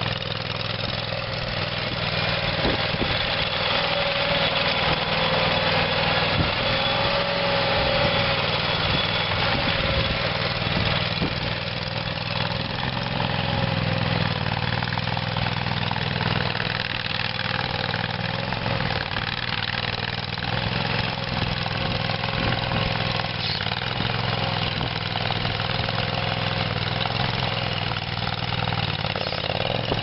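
Kohler ECH740 V-twin gas engine of a Vermeer CTX50 mini skid steer running steadily, with a higher tone that wavers up and down above the engine note.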